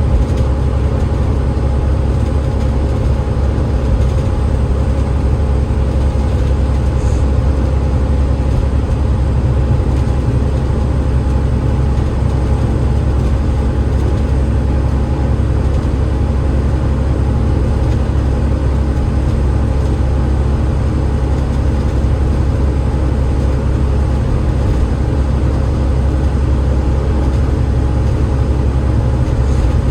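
Alexander Dennis Enviro500 MMC double-deck bus with a Cummins ISL8.9 diesel and ZF EcoLife automatic gearbox, heard from inside while driving at a steady pace: a steady low drone of engine and road noise with no gear changes or sudden sounds.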